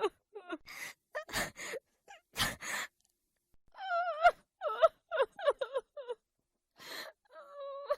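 A woman crying: sharp gasping inhales, then shaky, wavering sobs with a held wailing cry near the end.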